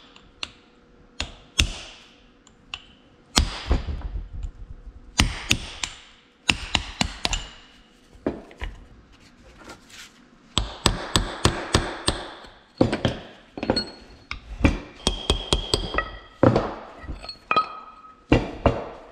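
Hammer blows and metal clinks on the green brake housing of an Oliver 1855 tractor as the brake assembly is taken apart, with a burst of rattling about halfway through.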